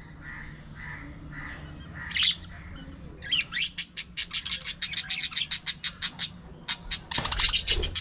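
Budgerigars chattering: soft warbling notes at first, then fast runs of sharp, high chirps a little after three seconds in and again near the end, over a low steady hum.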